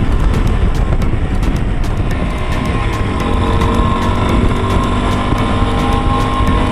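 Wind buffeting the microphone on a Yamaha Tricker single-cylinder trail bike riding at speed, with the engine's steady hum coming through more clearly about three seconds in.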